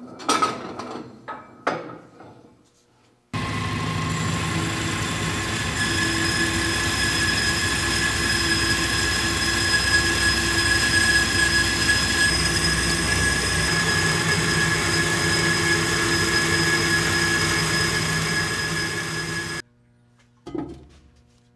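Clanks of steel stock being handled, then a metal-cutting saw cuts through steel tube. The saw makes a loud, steady whine with a high squeal; it starts suddenly about three seconds in and cuts off abruptly near the end, followed by a single clank.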